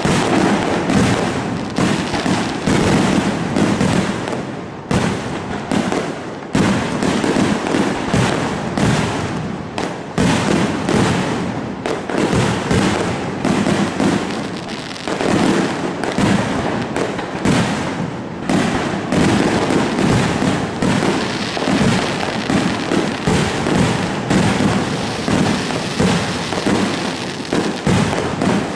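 Aerial fireworks display: a loud, continuous barrage of rapid, overlapping bangs and crackling from shells bursting in the sky, with no pause.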